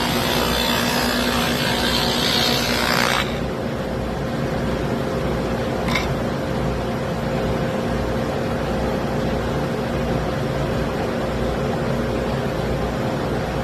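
Electric router running steadily, cutting a groove into the edge of a zelkova wood cutting board for about the first three seconds, then spinning free with a steady hum once the cut stops. A single short click comes about six seconds in.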